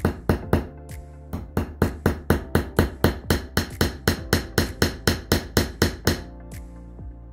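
Small hammer tapping rapidly at the end joint of a wooden beehive frame resting on a rug, driving in a small nail with quick light strikes, about four or five a second. The tapping pauses briefly about a second in and stops about six seconds in.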